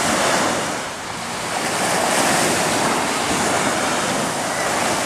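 Small ocean waves breaking and washing up on a sandy shore, a steady surging wash that swells and eases, with wind on the microphone.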